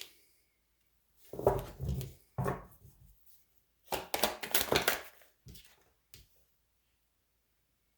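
Tarot cards being handled on a table: several short bursts of rustling and tapping, the longest about four seconds in.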